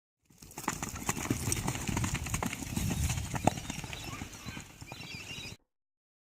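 Horses' hooves clopping in a string of uneven strikes, one sharper knock about three and a half seconds in; the sound cuts off abruptly near the end.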